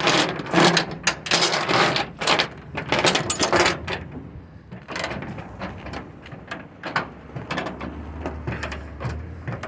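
Metal clinking and rattling of flatbed securement chains and binders being handled: a dense run of clicks for about four seconds, then scattered clicks.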